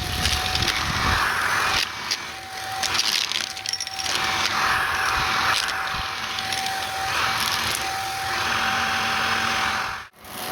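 Shark vacuum running with a steady motor whine, sucking up gritty, crunchy debris in repeated back-and-forth passes that swell every couple of seconds, with small clicks and crackles of particles rattling up the tube. The sound cuts out sharply for a moment near the end.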